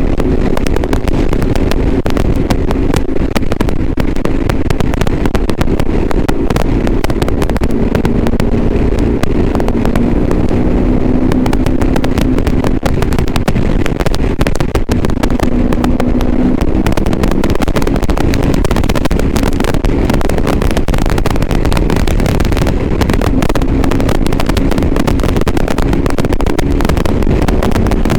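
Motorcycle engine running under way, its pitch wavering, recorded through a GoPro Hero 7 Black's external microphone. A constant crackle runs over it: the bad, distorted sound the recording is about.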